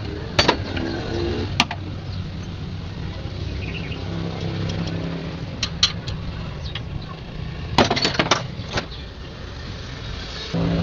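A steady low motor rumble with scattered sharp clicks and knocks: one near the start, one a second and a half in, a pair about six seconds in, and a quick cluster about eight seconds in.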